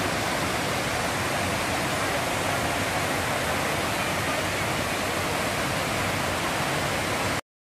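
Waterfall's falling water rushing in a steady, even wash of noise, which cuts off abruptly near the end.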